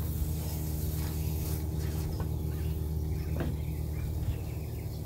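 Gas pressure washer with a Honda engine, used as a drain jetter, running steadily with a low, even hum. A light knock comes about three and a half seconds in.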